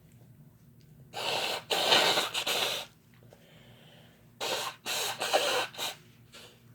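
Two harsh, breathy nasal bursts from a person sneezing on chhinkni snuff. They come about three seconds apart, and each lasts about a second and a half in two quick parts, with no voiced 'choo'.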